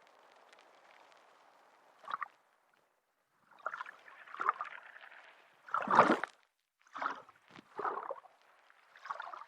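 Underwater water bubbling: a faint wash, a short burst of bubbles about two seconds in, then a run of irregular bubbling bursts, the loudest about six seconds in.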